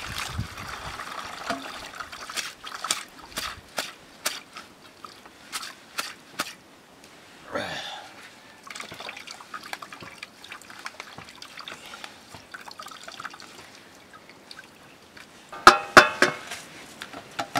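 Wet grain and water poured from a steel bowl into a plastic colander, trickling and dripping as it drains, with scattered knocks and clicks as the bowl and colander are handled. About 16 s in, a few loud ringing metal clanks from a ladle striking the iron wok.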